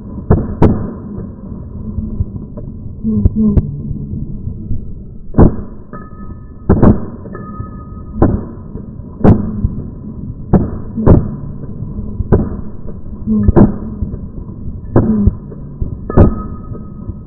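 AR-15 rifle firing single semi-automatic shots: about a dozen sharp reports at irregular intervals of roughly a second, over background music.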